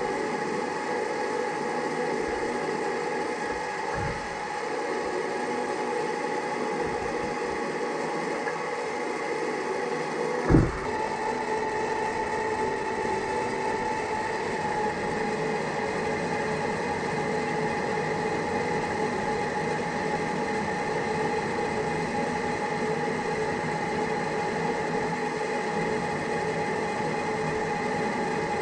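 Old metal lathe running steadily, its motor and gearing giving a steady whine that the owner thinks comes from a noisy motor. A single sharp knock stands out about ten seconds in.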